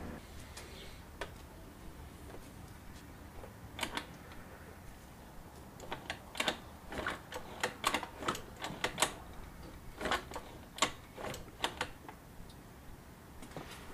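Faint irregular clicks and clunks from the Baja SC50 minibike's kickstarter being worked, turning the drained engine over without it firing to push out more old oil. The clicks come in clusters, busiest over the second half.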